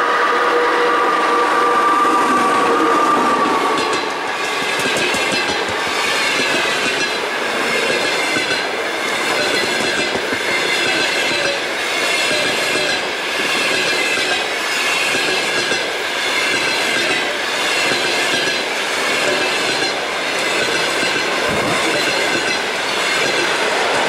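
Passenger train hauled by an EP2K DC electric locomotive passing close by. For the first few seconds, as the locomotive goes past, two steady tones sound over the rumble. Then the coaches roll by with a rhythmic clickety-clack of wheels over rail joints and a faint squeal of wheels, the loudness rising and dipping as each pair of bogies passes.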